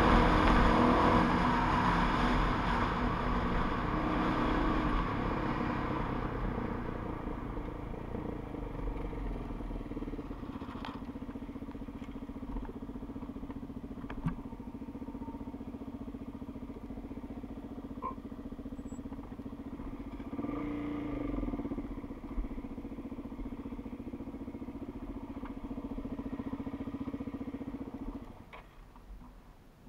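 Dirt bike engine running while riding a dirt road, with wind and road noise that die down over the first several seconds as the bike slows to a steady low engine note. A brief rev about two-thirds of the way through, and the engine note cuts out near the end.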